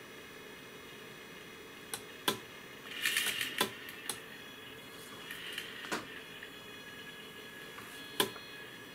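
Several sharp clicks of keys pressed on a thermocouple simulator, with two short bursts of whirring from the engine temperature indicator's AC servo motor and gear train as it drives the needle and drum counter to each new reading.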